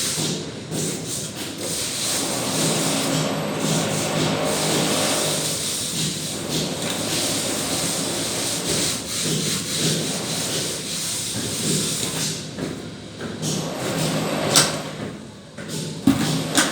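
Continuous rough scraping and rubbing of a plastering tool worked over a wall, with two sharp knocks near the end.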